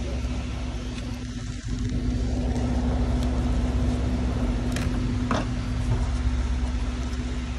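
Steady low mechanical hum with a constant tone, likely workshop machinery, with a few light clicks and knocks about five seconds in as a gloved hand handles the loosened air-conditioning condenser.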